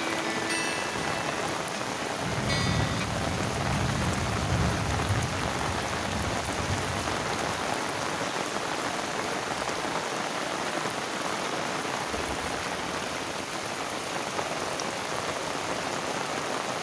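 Heavy rain falling steadily, with a low rumble from about two to seven seconds in.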